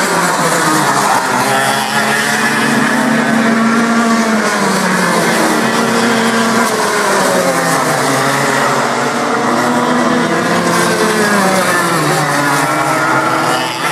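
Several racing go-kart engines running around the circuit at once, their pitch rising and falling as the karts speed up along the straights and slow for the bends.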